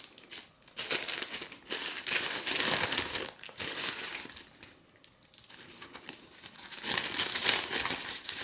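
A white wrapping sheet crinkling and rustling in the hands as it is pulled off a camera, in irregular bursts, with a quieter lull around the middle and louder crinkling near the end.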